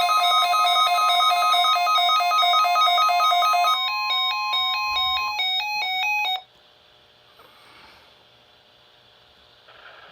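NOAA Weather Radio warning alarm test: a steady 1050 Hz alarm tone heard over the radio, with a fast electronic two-note beeping pattern over it that changes about four seconds in. All of it cuts off about six seconds in, leaving faint radio hiss.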